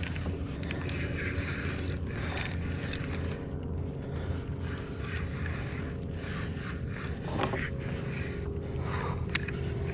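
Fishing reel being cranked against a heavy fish, a continuous scraping noise with many small clicks.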